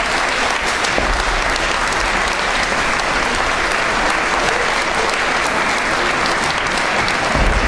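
Audience applauding: a steady, dense wash of clapping.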